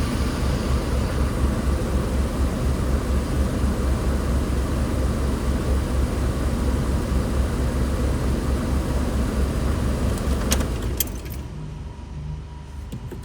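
VW Polo 9N's engine idling steadily with an even low pulse, then switched off about eleven seconds in, with a couple of clicks just before it stops.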